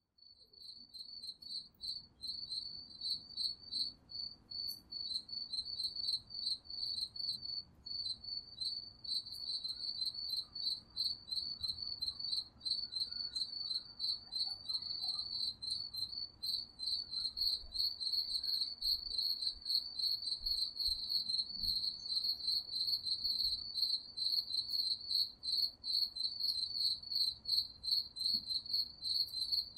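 Crickets chirping steadily in a rapid, continuous trill, fading in out of silence and growing louder over the first few seconds. A faint low ambient rumble runs underneath.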